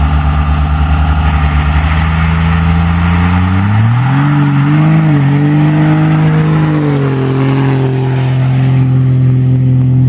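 Dodge Ram pickup's Cummins diesel engine pulling away under heavy fuelling and blowing thick black smoke. A low throbbing engine note climbs in pitch about four seconds in, with a high whine rising alongside, holds, then eases down near the end as the truck goes past.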